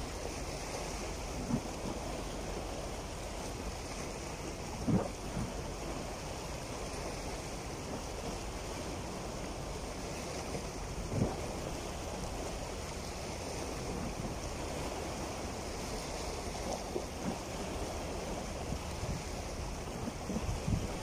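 Small sea waves washing and splashing over rocks at the shoreline, with a few brief louder splashes, and wind on the microphone.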